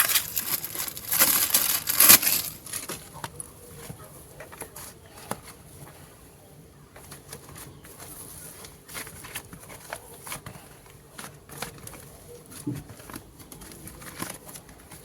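Crinkling and rustling over the first couple of seconds, then a run of quieter, scattered small clicks and squishes: modelling clay and its packaging being handled.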